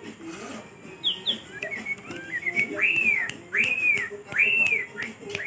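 White-rumped shama singing: a scatter of short chirps, then from about three seconds in three loud, clear whistled notes, each rising and then falling in pitch, about two-thirds of a second apart.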